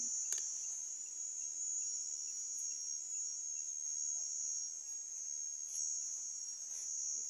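Steady, unbroken high-pitched chirring of insects, with a single sharp click shortly after the start.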